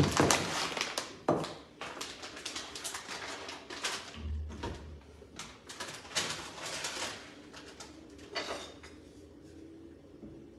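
Kitchen cupboard being rummaged through: a run of clattering clicks and knocks as things are moved about on the shelf, with a dull thump about four seconds in.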